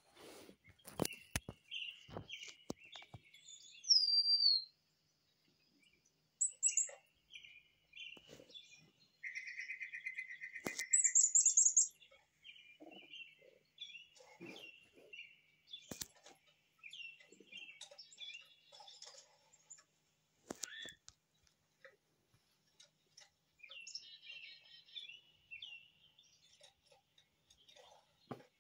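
Garden birds chirping and calling through a tablet's speaker: many short chirps throughout, a loud falling whistle about four seconds in and a fast trill about ten seconds in. A few sharp knocks near the start.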